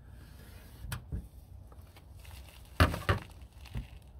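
Handling noise from a spirit level being moved and set against a door: a few light knocks and rustles, the loudest two close together about three seconds in.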